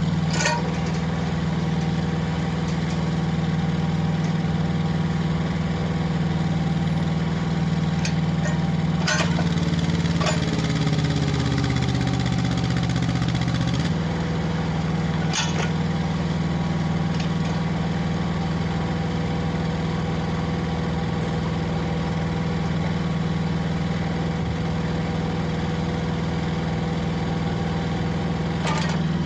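Yanmar SV08-1 mini excavator's small diesel engine running steadily while its boom and arm are worked. About nine seconds in, the engine note dips and wavers for a few seconds, then steadies again, with a few short sharp clicks scattered through.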